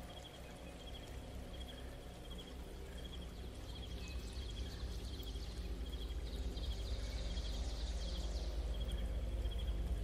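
Outdoor nature ambience: a high, cricket-like chirp repeating about twice a second over a low, steady rumble that slowly grows louder, with a brief flurry of higher chirps in the second half.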